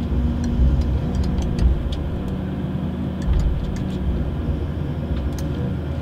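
Komatsu forestry harvester running, heard from inside the cab: a steady low engine and hydraulic rumble with a constant hum, while its felling head works a spruce trunk, with scattered sharp clicks and cracks throughout.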